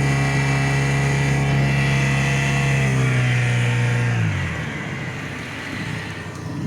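Boat engine running steadily at speed, then throttled back about four seconds in, its pitch dropping and the sound getting quieter.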